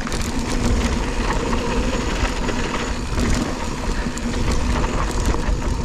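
Mountain bike rolling downhill over loose, rutted dirt: a steady, noisy rumble of tyres on the trail with frequent small rattles and clicks from the bike jolting over the ruts.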